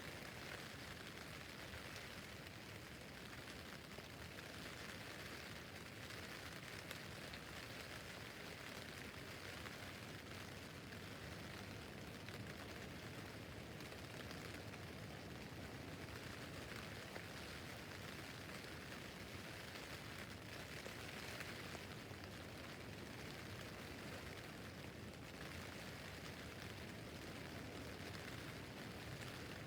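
Rain pattering steadily on a tent roof, an even hiss of many small drops.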